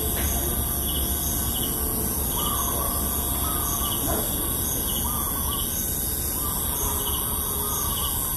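Rural morning ambience: birds chirping and calling, one of them repeating a short call every second or so, over a steady high hiss and a low rumble.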